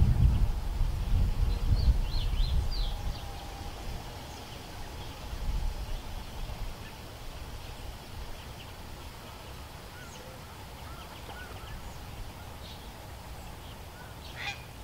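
Outdoor background with a low rumble for the first four seconds or so, then quieter, with scattered faint short bird chirps and a brief sharp call near the end.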